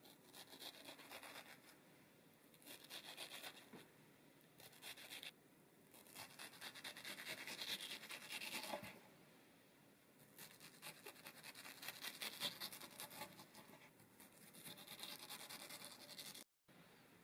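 Faint scratchy cutting: a small kitchen knife slicing through soft mango flesh and scraping the cutting board, in half a dozen short bursts with brief pauses between.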